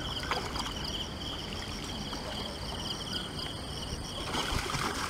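Insects chirping in a steady, rapidly pulsing high-pitched chorus over low background noise. A short burst of noise comes about four and a half seconds in.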